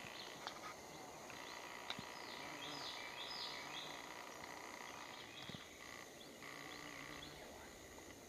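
Faint, steady insect drone with a few quick high bird chirps about three seconds in, and a couple of light clicks early on from handling.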